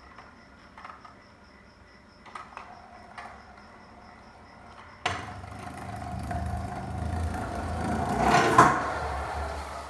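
Kick scooter's wheels rolling on a concrete floor, starting suddenly about five seconds in and growing louder as it comes closer, then easing off near the end. A few faint knocks come before it.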